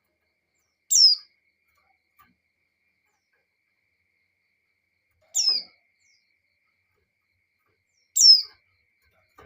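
A white-eye (pleci) calling: three short, high notes that each drop quickly in pitch, spaced a few seconds apart.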